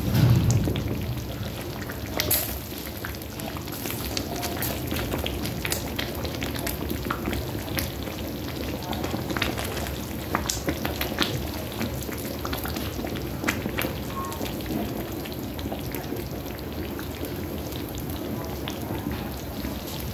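Thick tomato stew simmering in a metal pot: a steady bubbling and spluttering with many small scattered pops. There is a low knock right at the start.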